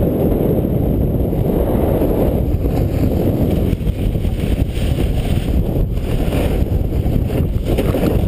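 Wind buffeting a GoPro's microphone while the snowboard runs fast over packed snow: a loud, steady rush of low noise with no pauses.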